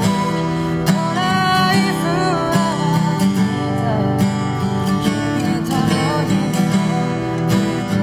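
Acoustic guitar strummed steadily, with a voice singing the melody over it.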